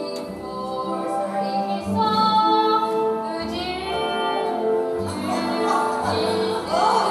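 A woman singing a song from the stage musical over instrumental accompaniment, holding long notes with vibrato.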